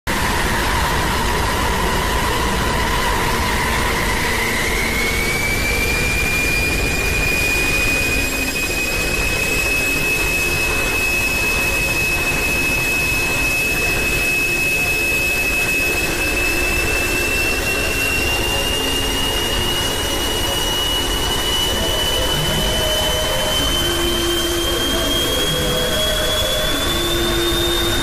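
Space-ambience audio track: a steady, loud rushing noise with a high whistling tone that climbs slowly in pitch. A lower tone underneath drops out about four seconds in.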